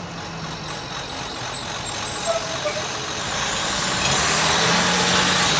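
A full-size school bus driving past, its engine running and growing louder as it comes closer, with a thin high squeal during the first two seconds.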